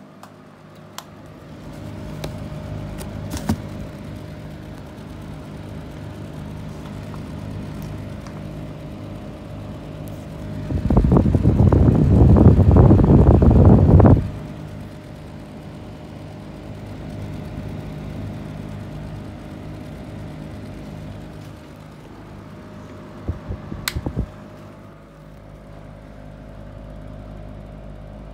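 Two exhaust fans, an Airflow and a Heller, running together with a steady motor hum and whir. About eleven seconds in, a loud rushing noise lasts about three seconds, air from a fan blowing over the microphone, and a few sharp knocks come later.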